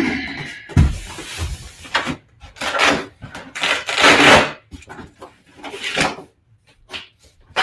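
A large polystyrene foam shipping crate is set down on a table with a heavy thump a little under a second in. Rubbing and scraping of the foam follow in short bursts, loudest about three to four seconds in, as hands work at its lid and straps.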